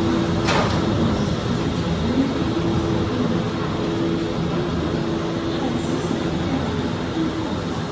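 Disney Skyliner gondola cabin running on its cable, heard from inside the cabin: a steady hum over a low rumble, with a brief falling whoosh about half a second in.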